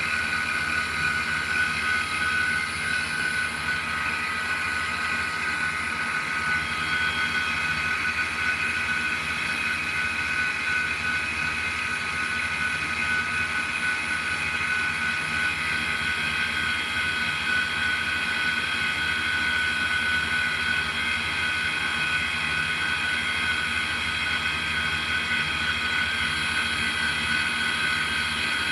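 Electric motor-generator rig with an RC airplane outrunner motor, running as a battery charger at a steady speed. It gives a constant whirring whine with several steady high tones that do not rise or fall.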